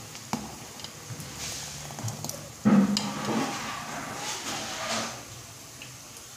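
Steel ladle stirring thick, boiling kadhi in a metal pot, scraping and knocking against the pot, loudest a bit under three seconds in.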